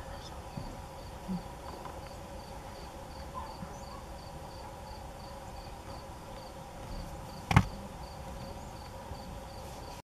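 Insect chirping, high-pitched and evenly repeated about three times a second, over a steady background. A single sharp knock about seven and a half seconds in is the loudest sound.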